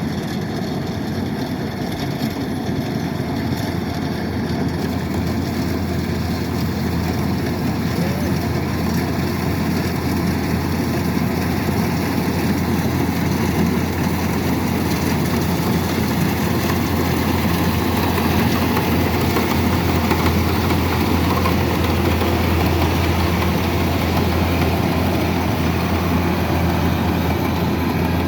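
Kubota DC-108X combine harvester running steadily, a loud, even engine drone with a strong low hum that grows slightly louder over the first several seconds.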